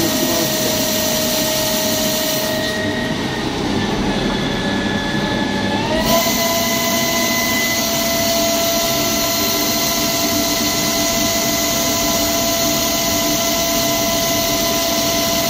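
CNC lathe machining under coolant: a steady spindle and drive whine of several tones over the hiss of the coolant spray. About three seconds in the hiss fades and the whine dips slightly in pitch; a little after six seconds the hiss comes back and the whine glides up to its earlier pitch.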